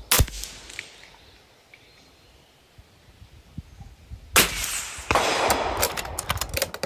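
A single shot from an Impact FX M3 PCP air rifle firing a .22 slug: one sharp crack right at the start, cut off quickly. About four seconds later a knock follows, then some two seconds of clicking and rustling handling noise.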